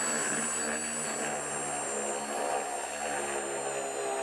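Cordless drill running steadily at full speed as it drills the metal bracket into the truck bed, a high whine that sinks slightly in pitch and cuts off near the end.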